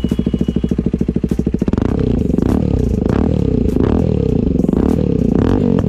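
KTM 250 Adventure's single-cylinder four-stroke engine running through an aftermarket exhaust. It idles with a rapid, even beat, then from a little under two seconds in the throttle is blipped several times, the revs rising and falling.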